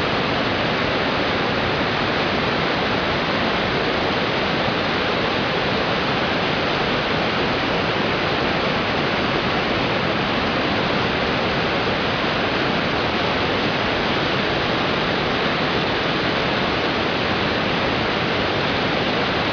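Loud, steady rush of falling water, an unbroken hiss with no separate splashes.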